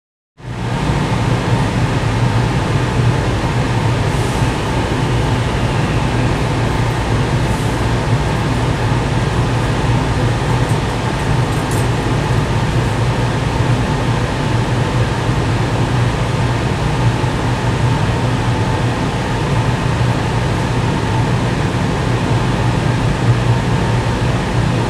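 Steady low hum of a stationary JR West 285-series Sunrise Express sleeper train at a platform with its passenger door open, its onboard equipment running; the sound starts abruptly just after the beginning.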